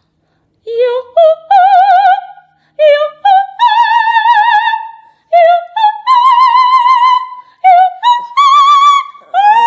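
A woman singing operatic vocal warm-up exercises: four phrases of short rising notes, each ending on a held note with wide vibrato and each pitched a step higher than the last. Right at the end a small dog starts to howl, a long falling tone.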